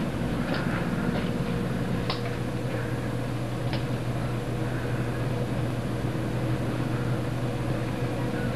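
A steady low mechanical hum under an even hiss, with a few faint ticks in the first half.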